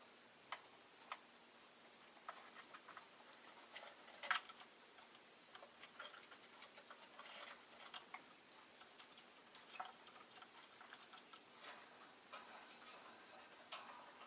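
Faint, irregular clicks and taps from a rosy-faced lovebird in its cage, the loudest about four seconds in.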